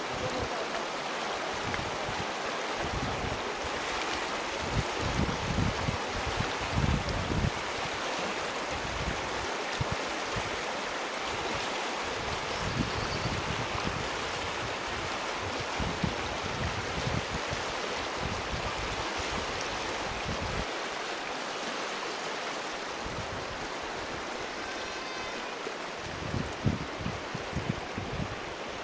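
Shallow river flowing fast over a stony bed: a steady rush of water.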